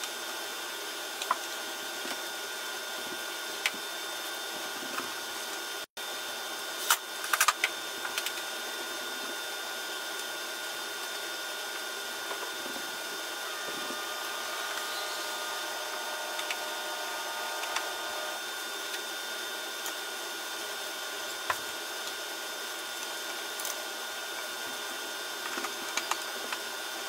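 A steady whirring drone, like a machine running, with scattered light clicks and taps of hand tools being handled, a cluster of them about seven seconds in.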